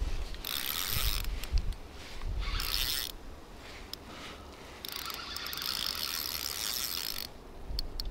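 Spinning reel on a feeder rod being cranked in three spells, its gears whirring as line is wound in on a hooked fish that is coming in easily.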